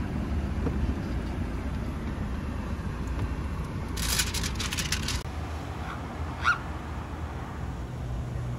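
Steady low rumble inside a car cabin, with a short burst of crackling about four seconds in and a brief rising chirp a couple of seconds later.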